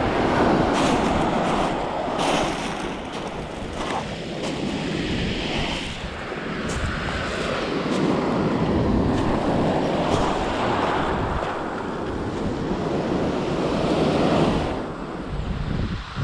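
Sea waves breaking on a shingle beach, the surf swelling and easing every few seconds, with wind buffeting the microphone.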